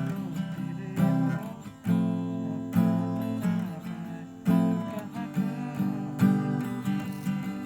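Acoustic guitar strumming chords, with a strong downstroke roughly every second.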